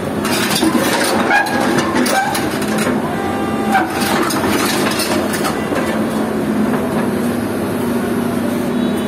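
Tracked hydraulic excavator crawling onto a steel low-bed trailer, its diesel engine running steadily. The steel track links clank repeatedly, with a few short squeaks in the first few seconds.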